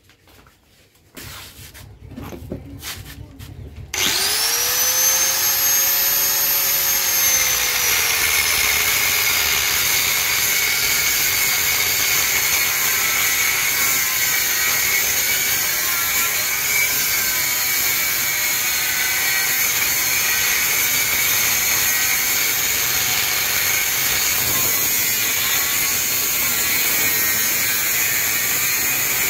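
Angle grinder with a cutting disc starting up about four seconds in, after a few light knocks, its high whine dropping as the disc bites into the motorcycle frame tube and then cutting steadily through the metal.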